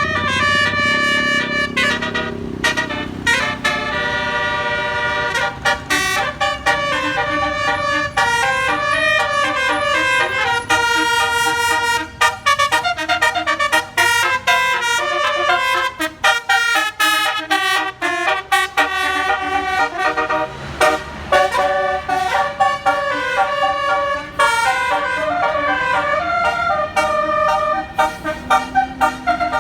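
A bus's telolet basuri horn, a multi-tone musical air horn, playing a melody in quick stepped notes with short breaks between phrases. A bus engine runs underneath near the start.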